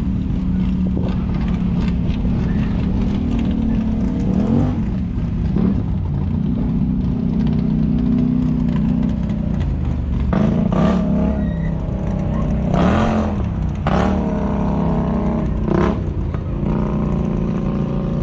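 Drag race car engine idling with a lumpy, uneven note, revved in several short throttle blips that rise and fall quickly.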